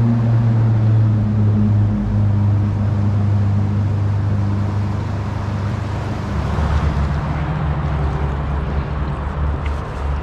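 Background music: low sustained bass tones that change pitch every couple of seconds over a soft rushing wash.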